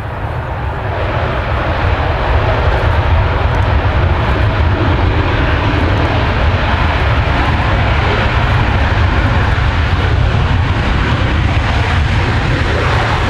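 Twin J79 turbojets of an RF-4 Phantom II jet at take-off power, getting louder over the first two seconds as the take-off roll begins, then holding at a loud, steady level with a deep rumble as the jet speeds down the runway.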